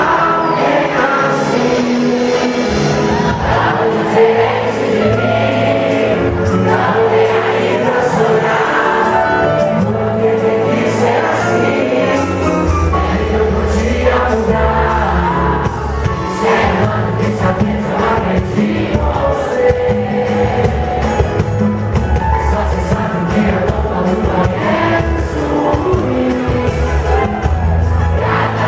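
A live band performs a song, with a male lead singer over the band. A heavier bass line comes in about halfway through.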